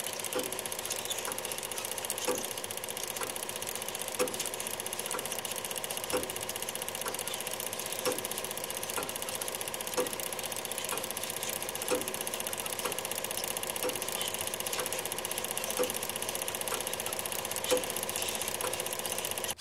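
Film projector running: a steady mechanical whir with a fast, even clatter, and a sharper click about every two seconds.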